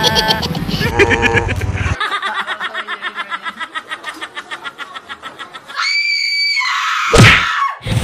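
Laughter and voices, then a woman's rapid, rhythmic cackling laugh in evenly spaced bursts, several a second. It ends in a high, held squeal about six seconds in, followed by a short swooping sound.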